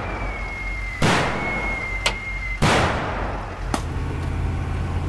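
Simulated battlefield blasts in a military training exercise: two heavy explosions about one and two and a half seconds in, each fading off, and sharp single shots about two seconds and nearly four seconds in, over a thin steady high tone. A Humvee engine then runs steadily.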